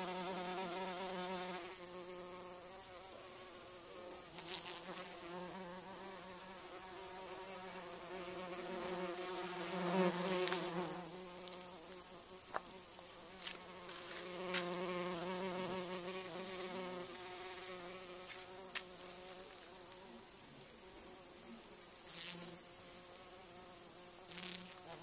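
A bumblebee buzzing in flight as it works the flowers, a steady droning hum that swells and fades as it moves nearer and farther, loudest about ten seconds in. A few short clicks break in now and then.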